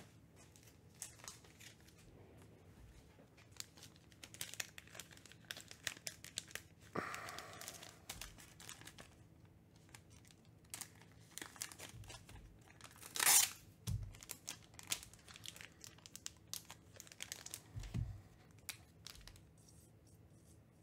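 Trading-card pack wrappers being torn open and crinkled, with rustling and light clicks of cards being handled. A louder rip comes about two-thirds of the way through, and there are a couple of soft thumps on the table.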